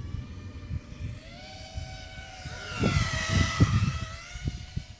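FPV racing quadcopter's Racerstar 2205 2300kv brushless motors spinning DAL 5040 tri-blade props, a multi-tone whine whose pitch dips and rises with throttle, loudest about three seconds in. Irregular low rumbles run underneath.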